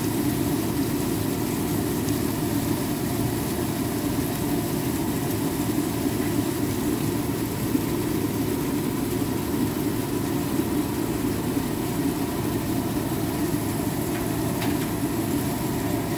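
Steady low drone of a running fan motor, with a faint tick or two near the end.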